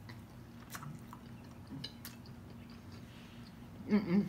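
Close-up soft chewing with a few faint wet mouth clicks as a sauce-coated boiled egg is eaten, and a short hummed voice sound near the end.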